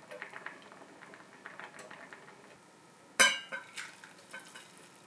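A metal utensil clinking and scraping against a cooking pot, with soft scattered clicks and one sharp ringing clink about three seconds in.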